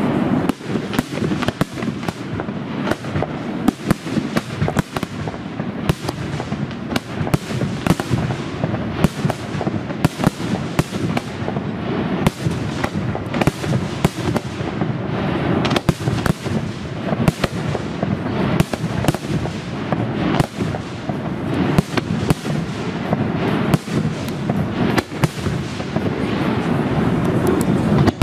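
Aerial firework shells of a professional display bursting in rapid succession: a dense, unbroken series of sharp bangs, several a second, over a constant din.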